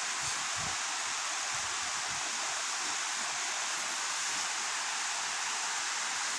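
Steady rushing of river water at a waterfall, an even hiss that stays level throughout.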